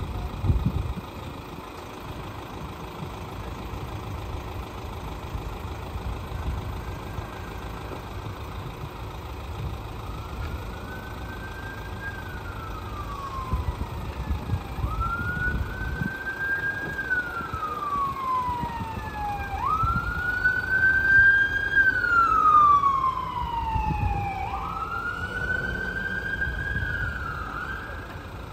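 Emergency vehicle siren wailing, its pitch rising quickly and then falling slowly, repeating about every four to five seconds; it fades in about a third of the way through and is loudest a little past the middle. Under it runs a steady low rumble.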